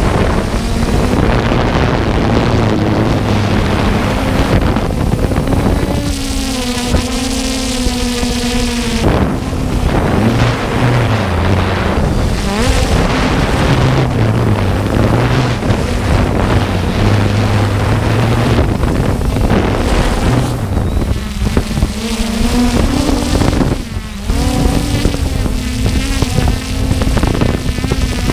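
Quadcopter drone's propellers humming steadily, with wind noise on the microphone.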